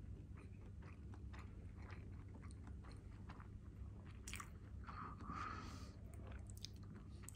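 A person chewing a mouthful of homemade rolled sushi, quietly, with many small mouth clicks and a louder spell of chewing about four to six seconds in.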